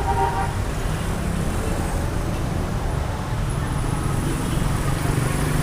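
Steady city street traffic noise: the continuous low rumble of passing vehicles.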